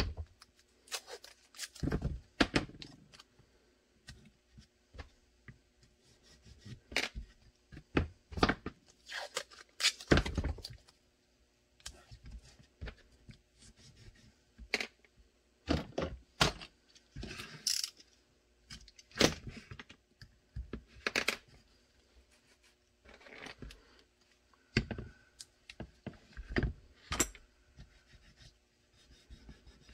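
Blue painter's tape being pulled from the roll, torn and pressed down by hand, with scattered knocks and taps as tape rolls and pieces are set down on a cutting mat.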